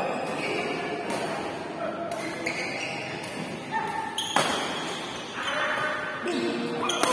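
Several sharp hits and thuds ringing out in a large hall, a few seconds apart.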